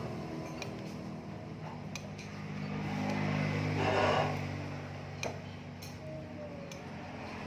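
A motor vehicle engine running nearby, fading and then swelling again about three to four seconds in, with a few light clinks of a spoon against a bowl.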